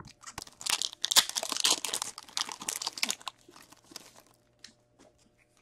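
A foil trading-card pack wrapper, a 2019-20 SP Authentic hockey pack, being torn open and crinkled by hand: dense crackling for about three seconds, then a few faint ticks.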